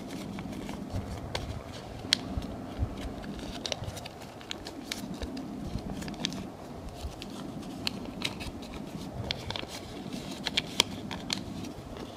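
A square of origami paper crackling and crinkling under the fingers as it is creased and pressed into an open sink fold. The crackles come as scattered sharp ticks over a steady low hum.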